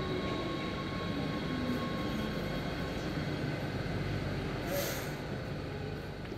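NS Sprinter Light Train electric multiple unit moving slowly past along the platform, a steady rumble with a thin whine that fades away in the first few seconds. A short hiss about five seconds in.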